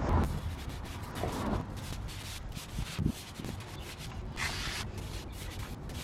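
A long wool-style wheel brush scrubbing a wet alloy wheel, its bristles rubbing in quick, irregular strokes between the spokes and around the brake caliper.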